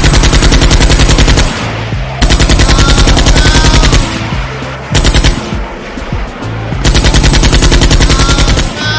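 Machine-gun fire sound effect in four rapid bursts, the third one short, over background music.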